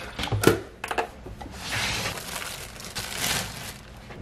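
Kitchen handling noises: a few sharp clicks and knocks in the first second as a drip coffee maker's glass carafe and lid are handled, then spells of rustling, with a plastic bread bag crinkling.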